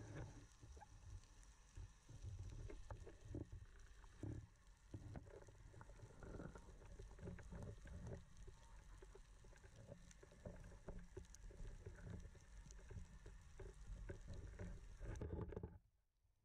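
Faint underwater sound heard through a camera's waterproof housing: an uneven low rumble of moving water with soft knocks and a few brief clicks. It falls away abruptly near the end.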